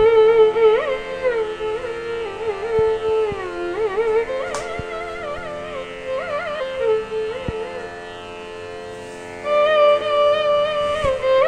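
Background instrumental music in Indian classical style: a single melodic instrument playing slow notes that bend and glide in pitch over a steady drone.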